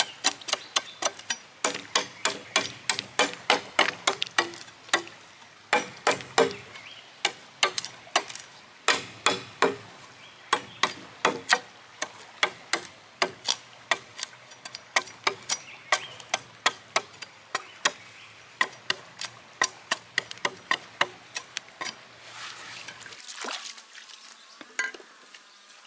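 A hand tool striking wood over and over, about two to three sharp blows a second with a couple of short pauses, giving way to softer, scattered knocks near the end.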